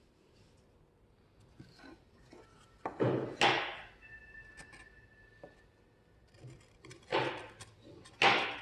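Three short, loud scraping or rubbing sounds, about three seconds in, about seven seconds in and near the end, over a faint steady low hum.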